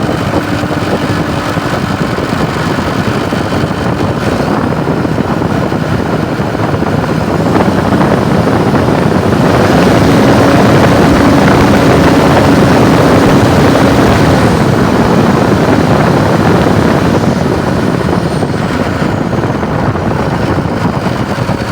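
Liugong 922D's diesel engine running, now responding after its actuator cable was adjusted; it grows louder about eight seconds in, holds there for several seconds, then eases back.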